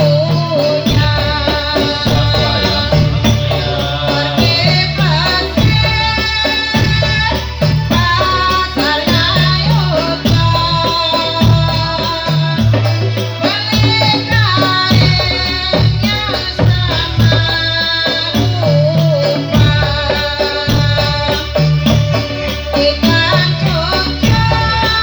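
Dolalak dance music playing continuously: rattling, tambourine-like percussion over a steady low bass beat, with a bending melody line that sounds sung.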